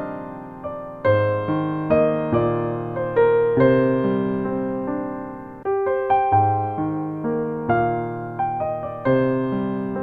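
Background music: soft electric piano playing slow chords, each note struck and fading away.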